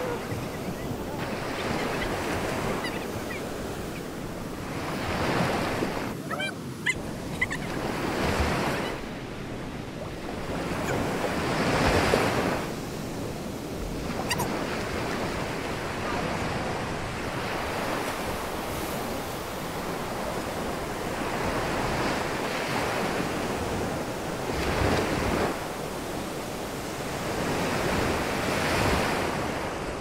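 Ocean surf breaking steadily on the shore, each wave swelling and fading every few seconds, with wind on the microphone.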